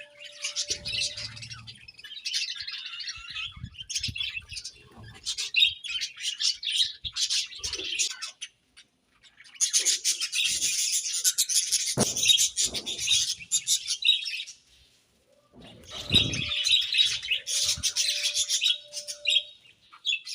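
A group of budgerigars chirping and chattering in dense, rapid bursts, with two brief lulls, and a few low soft thuds underneath.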